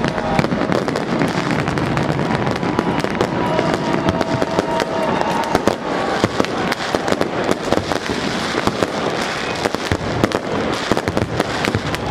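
New Year's Eve fireworks going off in a dense, continuous barrage: many overlapping bangs and crackles with no break.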